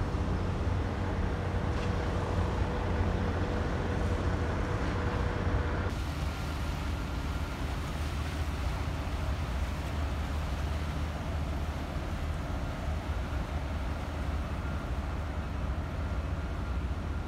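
Steady low engine rumble. After a cut about six seconds in, this is a large motor yacht motoring past on the river. In the first six seconds a faint steady tone sits over the rumble.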